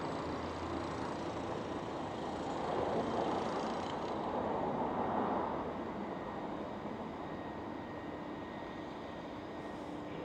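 Steady outdoor background noise of distant traffic, swelling gently a few seconds in as a vehicle passes, then settling.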